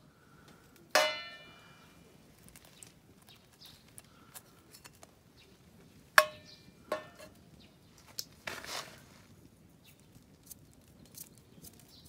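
Two sharp metallic clinks that ring briefly, about a second in and about six seconds in, from camp cookware or utensils knocking together. A few lighter knocks and a short rustle follow; otherwise quiet.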